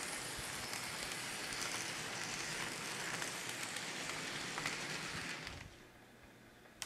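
N scale model coal train rolling along the track: a steady hiss with small ticks from the hopper wheels on the rails and the Kato ES44AC's motor, fading out about five and a half seconds in. A faint click near the end.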